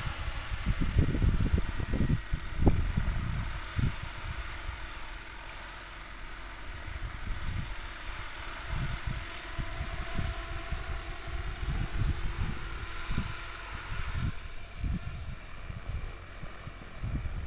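Radio-controlled aerobatic helicopter, far off, making a faint steady whine from its motor and rotor, which drops a little about fourteen seconds in. Over it come irregular low gusts of wind buffeting the microphone, loudest in the first few seconds.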